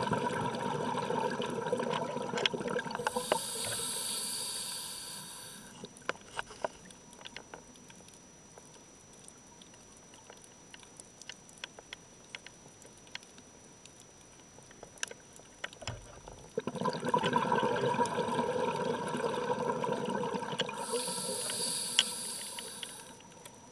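Scuba diver breathing through a regulator underwater: two long stretches of bubbling and rushing air about sixteen seconds apart, each ending in a high hiss. Between them, faint scattered clicks and crackles.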